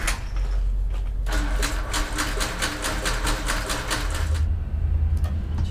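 Cessna 310's Continental engine cranked over by its starter, a fast even chugging of about five or six strokes a second that runs for about three seconds and stops without the engine catching, the sign of an engine not firing. A steady low hum comes in near the end.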